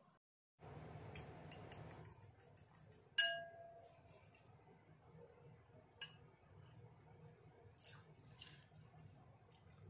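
Metal fork beating an egg in a ceramic bowl, clicking rapidly against the sides, with one louder ringing clink about three seconds in. Near the end, milk pours into the bowl.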